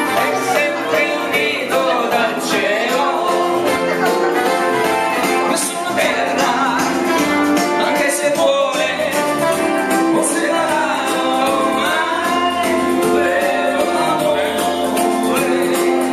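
Live dance music led by a keyboard, with singing over it.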